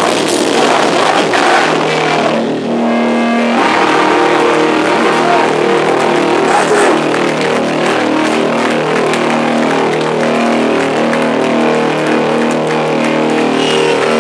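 Live metallic hardcore band playing loud, heavily distorted. About two and a half seconds in, the full-band crash drops away and the distorted guitars ring on in sustained, shifting feedback notes.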